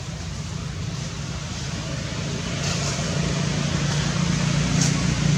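A motor vehicle's engine running with a steady low hum, growing gradually louder.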